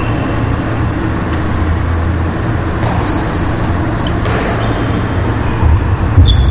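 Steady low rumble of a sports hall, with a few short high squeaks of court shoes on the wooden floor and a couple of sharp taps.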